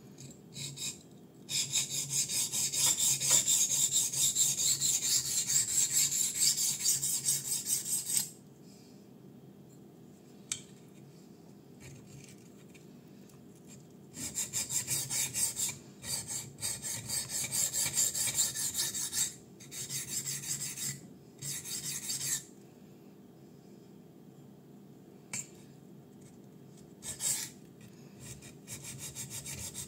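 A 154CM-steel folding-knife blade (Kizer Fighter) scraped back and forth across the coarse side of a DMT Duo Sharp diamond sharpening plate in quick rasping strokes. The strokes come in runs of a few seconds with pauses and a few light clicks between them.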